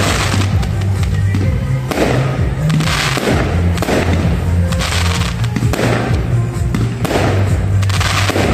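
Fireworks shells bursting in the sky, about half a dozen bangs a second or so apart, over music with a deep bass line.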